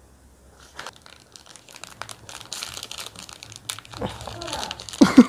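Cadbury Dairy Milk chocolate bar wrapper crinkling and tearing as it is unwrapped by hand: a busy string of crackles that starts about a second in and grows denser. A loud voice breaks in at the very end.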